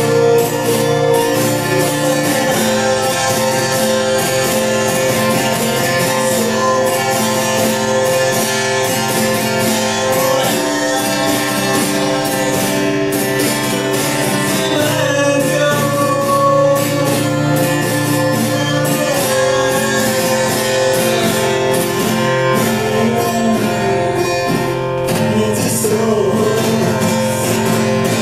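Song in Spanish: a voice singing over acoustic guitar and a full band backing, playing on without a break.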